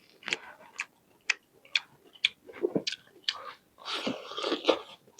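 A person chewing food with the mouth close to the microphone: a run of short, wet mouth clicks and smacks at an uneven pace, about two a second, with a longer stretch of chewing about four seconds in.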